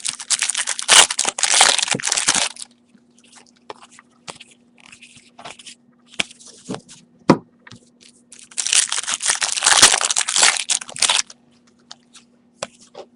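Trading card pack wrappers being torn open and crinkled, in two long stretches of tearing and crackling, with light handling clicks from the cards in between.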